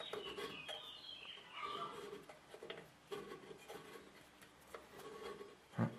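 Long hex key turning a screw into the underside of a MakerBot Replicator 2: faint, irregular scraping and small clicks of metal on metal, with a sharp knock near the end.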